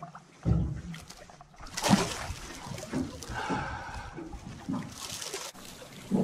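Water splashing and sloshing at the surface beside a boat hull as a released trout kicks away, with the loudest splash about two seconds in and another around five seconds.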